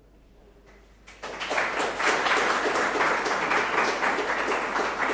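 People applauding: many hand claps begin abruptly about a second in and go on steadily.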